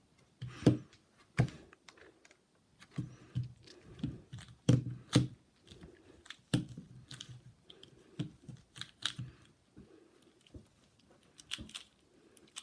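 Rubik's cube being turned and handled in one hand: irregular plastic clicks and clacks of the layers, several a second.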